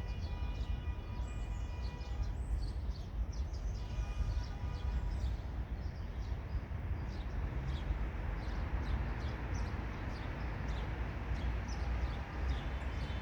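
Freight train hauled by an HŽ Cargo class 2041 diesel shunting locomotive, with Eas and Eanos wagons rolling by in a steady low rumble. High ringing tones sound for about a second and a half at the start and again around four seconds in. Faint high ticks run over the rumble.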